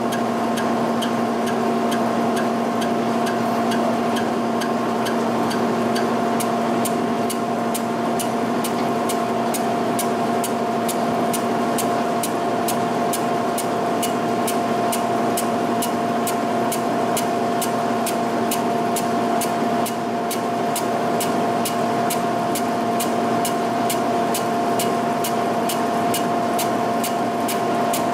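G&L horizontal boring mill spinning a boring head with a reversed single-point boring bar, back-facing the vertical edge of a cast-iron shaper way under power table feed. The machine's drive gives a steady whine, and a light regular tick about three times a second runs through it.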